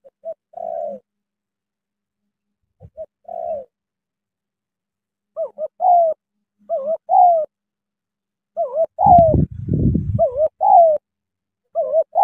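Spotted dove cooing: about seven phrases, each a couple of short notes followed by a longer falling coo, coming closer together in the second half. A brief low rumble sounds under the calls about nine to ten seconds in.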